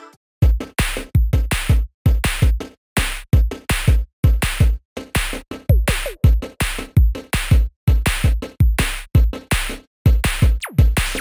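Background music: an electronic track with a steady drum-machine beat and deep bass hits, chopped by short gaps.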